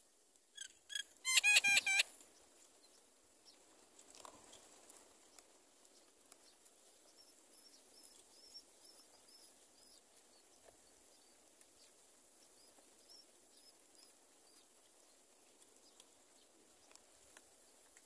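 Myna birds at the nest: a short, loud burst of rapid, shrill calls between about half a second and two seconds in. Later come faint, high, repeated cheeps while the adult myna stands over the nestlings.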